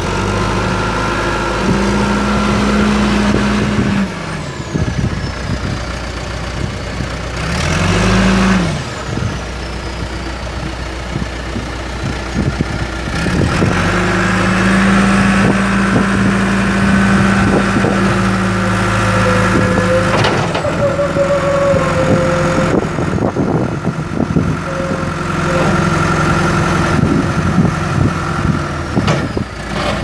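John Deere 310SG backhoe loader's four-cylinder turbo diesel engine running as the machine drives and works its loader. The engine holds a steady higher speed for a couple of seconds near the start and again for several seconds through the middle, with a brief drop and swell in engine speed about eight seconds in.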